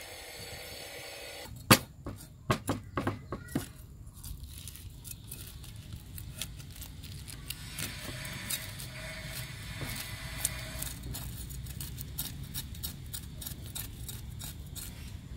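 A cleaver scraping the scales off a whole fish on a wooden chopping board. A few sharp knocks come about two seconds in, the first the loudest, followed by a long run of quick scraping strokes.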